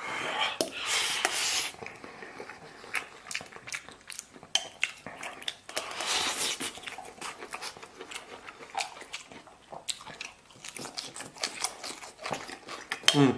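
Close-up eating sounds of a man eating lamb pilaf with chopsticks: chewing and smacking with many short clicks. There are two longer rushing stretches, at the start and about six seconds in, as rice is shoveled in from the plate.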